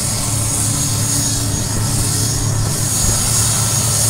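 Turboprop aircraft engines running: a loud, steady drone with a thin high whine above it.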